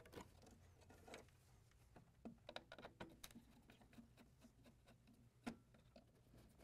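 Faint clicks and light rustling of hands handling ribbon cables and plastic connectors inside an ATM cabinet, the sharpest click about five and a half seconds in.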